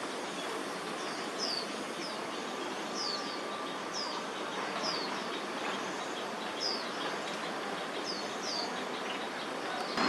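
Steady city-park background noise with a bird repeating short, high chirps that slide downward, about ten over the span, sometimes in quick pairs.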